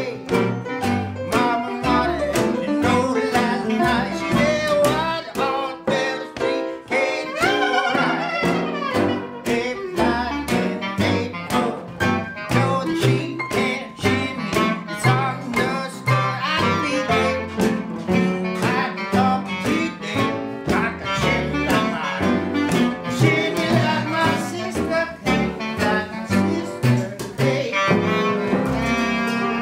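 Live acoustic band playing a song with a steady beat: upright piano and strummed acoustic guitar with other strings, and singing.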